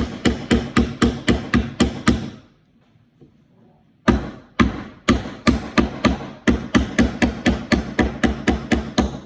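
A hammer driving nails into a wooden birdhouse panel with quick, even strikes, about four a second. The hammering stops for about two seconds, then starts again at the same pace.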